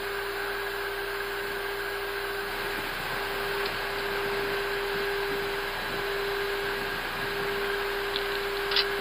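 Steady hum and hiss in an Airbus A320 cockpit as the airliner slows on the runway after landing, with one faint click near the end.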